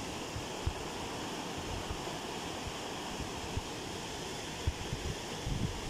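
Small river rapids: shallow water rushing steadily over stones in a white-water riffle, with wind buffeting the microphone in low thumps near the end.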